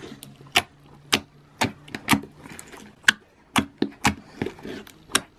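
Fingers poking and pressing clear green glitter slime (Green Apple Goo) in a jar, making sharp sticky pops and clicks about twice a second.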